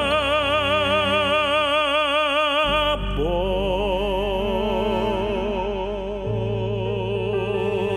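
A male operatic voice singing two long held notes with wide vibrato over instrumental accompaniment; about three seconds in, the voice slides up into the second note.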